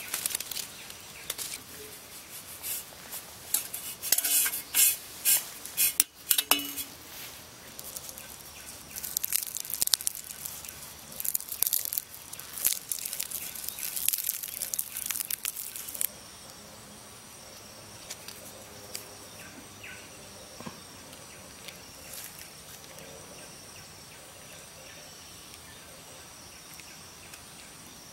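A run of sharp crackles and clinks through the first half, loudest about four to seven seconds in. Then a steady forest background with a faint, high, even insect drone.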